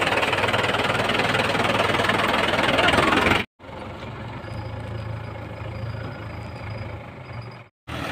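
Mahindra tractor's diesel engine running close by while it tows a threshing machine, loud at first; after a sudden cut about three and a half seconds in, the engine is heard quieter as a steady hum. A brief break comes near the end.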